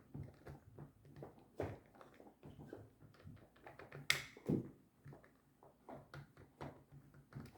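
Small clicks and knocks of hands working on a disassembled retractable tape measure, with one sharp click about four seconds in followed by a duller knock.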